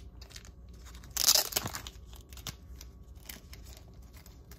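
Crinkly plastic trading-card packaging being torn and crumpled by hand: one loud, short rip about a second in, then lighter rustling and clicks.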